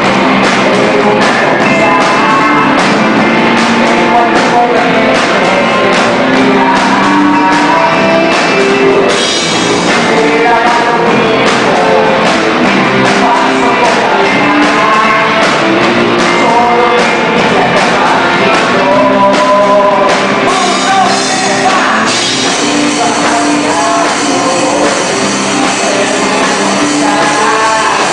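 A rock band playing loud music with a singer, drums and cymbals throughout; the cymbals grow brighter about a third of the way in and again near the end.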